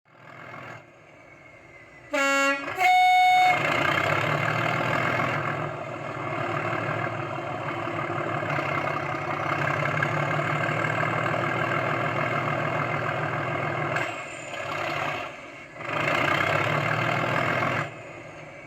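Model Class 37 diesel locomotive's digital sound decoder playing through its speakers: a two-tone horn blast, low note then high, about two seconds in, then the English Electric diesel engine sound running loud and steady. The engine sound drops back briefly after about fourteen seconds and again near the end.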